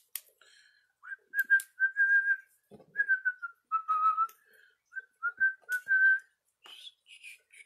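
A man whistling a short run of notes to himself, starting about a second in and stopping about six seconds in, with a few light clicks around it.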